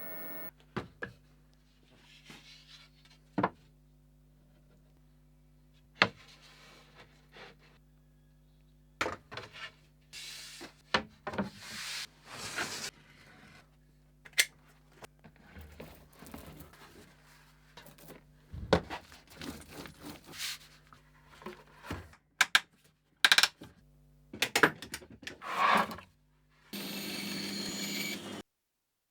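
Hand tools working wood: scattered knocks and taps and short rubbing or scraping strokes over a steady low mains hum, with a denser noisy stretch of about two seconds near the end.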